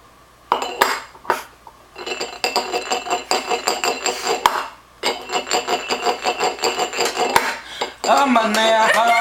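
A fork tapping quickly on a few cups, making ringing clinks. Two single strikes open it, then a run of taps with a short break near the middle and another run after. Near the end a voice joins in with a wavering tune.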